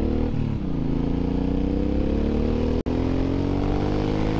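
Suzuki Boulevard M109R's 1783 cc V-twin engine pulling under acceleration. Its pitch drops with a gear change about half a second in, then climbs steadily through the next gear. There is one split-second dropout near the end of the third second.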